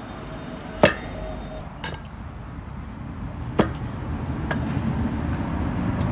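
Kitchen knife chopping through carrot onto a wooden cutting board: four sharp chops, the loudest about a second in, over a low steady background rumble.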